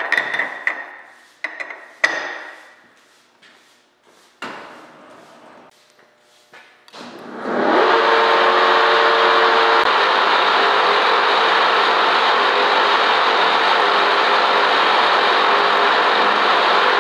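Metal clanks and knocks as a large taper-shank twist drill is seated in a horizontal boring mill's spindle. About seven seconds in, the mill starts and runs steadily and loudly as the inch-and-a-half drill feeds into the steel part.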